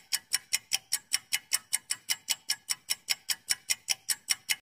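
Clock-tick countdown timer sound effect: even, sharp ticks about five times a second.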